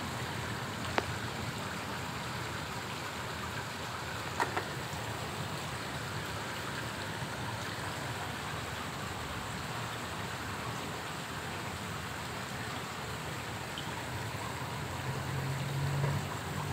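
Steady splashing and trickling of water in a koi pond, with two short clicks in the first few seconds and a brief low hum near the end.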